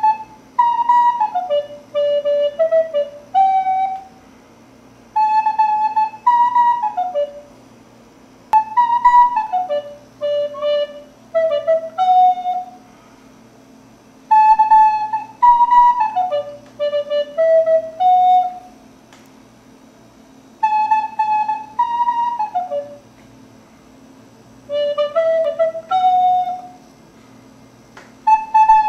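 Wooden recorder playing a short melody in phrases that rise briefly and then step down, the same phrase returning several times with short pauses between. A faint steady hum sits underneath.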